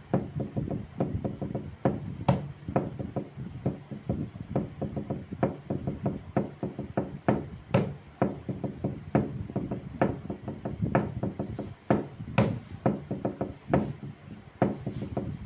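Wood being knocked and tapped in an irregular run, several strikes a second, with a few louder knocks among them and a slight ringing from the wood after each.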